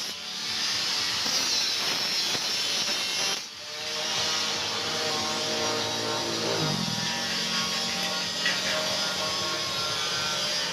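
Electric power tool running steadily on steel work, with a short break about three and a half seconds in.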